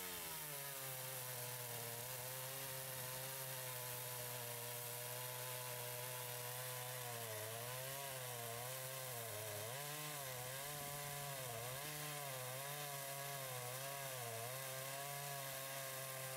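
Stihl MS 170 two-stroke gas chainsaw cutting through a honey locust log under load. Its engine note holds steady at first, then from about seven seconds in it repeatedly dips and recovers as the chain is pressed into the wood.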